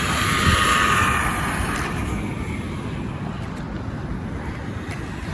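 Electric motor of a small RC car whining as it drives, with the hiss of its tyres. The whine is loudest in the first couple of seconds and then fades as the car moves away, over a steady low rumble.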